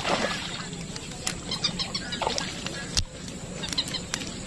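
Birds chirping in short repeated calls, with a few faint clicks and one sharp, louder snap about three seconds in.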